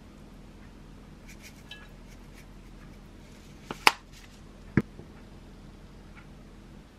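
Dishes being handled on a kitchen counter: a few light clicks, then a sharp clink and a heavier knock about a second apart as a ceramic bowl and kitchen items are set down and moved.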